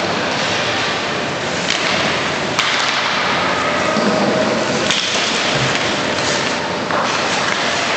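Ice hockey play in a rink hall: a steady scraping hiss of skate blades on the ice, with a few sharp clacks of sticks and puck.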